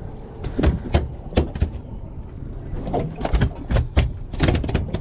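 A series of irregular knocks and thumps on a boat's fiberglass deck and fittings, over a low steady rumble.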